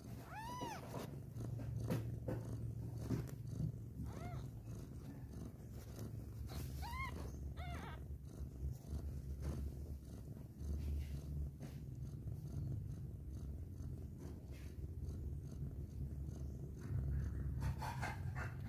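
Cat purring steadily while kittens nurse, with several short, high kitten mews: about half a second in, around four seconds, twice around seven seconds, and near the end.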